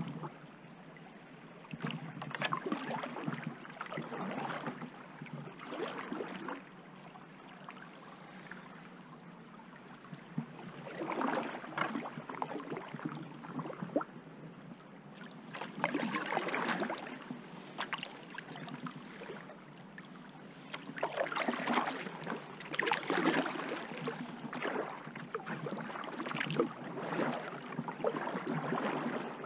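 Kayak paddle strokes splashing and dripping in river water, coming in spells of several strokes with quieter stretches of gliding in between.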